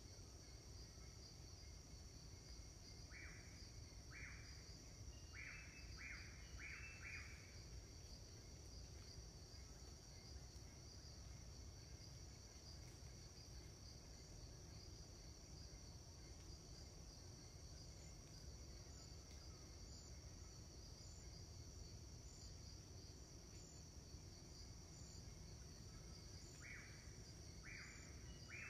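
Faint, steady insect chorus of crickets in the forest. A run of about six short calls comes a few seconds in, coming closer together, and again near the end.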